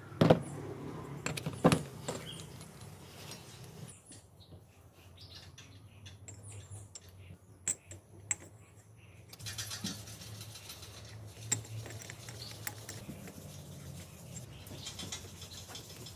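Small steel parts (bearings, bushings and a sprocket) clinking and clicking as they are handled and fitted into a drive hub, with a few sharper metal clinks in the first two seconds and scattered lighter clicks after.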